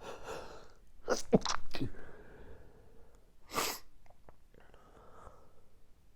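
A man sneezing in an allergy sneezing fit: a loud sneeze a little over a second in, then a shorter, sharp burst at about three and a half seconds, with breathing between.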